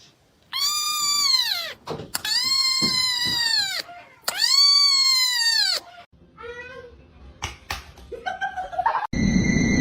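A cat giving three long, loud meows in a row, each rising and then falling in pitch. Fainter scattered sounds follow, and a steady hum with held tones cuts in suddenly near the end.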